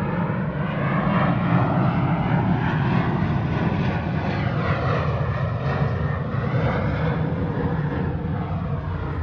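Jet airliner passing low overhead: a loud, steady rushing rumble with slow sweeping whooshes, swelling about a second in and easing off slightly near the end.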